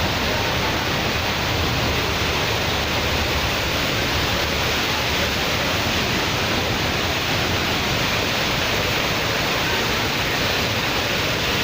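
Waterfall swollen by heavy monsoon rain, its falling water making a steady, even rush.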